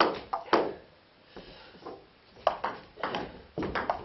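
Table tennis ball clicking off the bats and the table: two sharp hits at the start, then after a lull of a second and a half a quick run of bounces and strikes in a rally.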